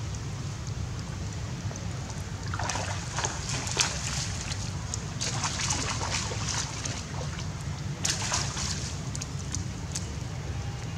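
Monkeys splashing and sloshing through shallow water in three short spells, over a steady low rumble.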